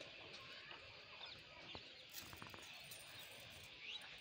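Near silence: faint outdoor ambience with a few short, distant bird chirps and some soft clicks around the middle.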